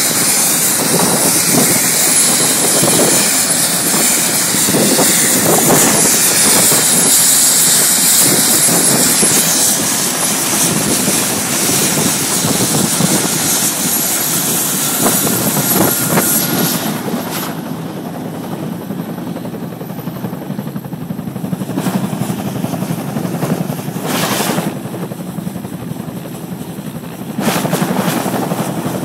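Light helicopter with a two-blade main rotor lifting off and hovering low, its rotor and engine running loud and close with a thin high whine over the rotor noise. It drops in level a little past the middle and swells again near the end.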